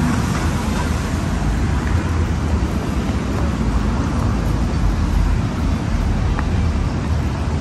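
City street traffic noise, steady, with wind rumbling on the microphone.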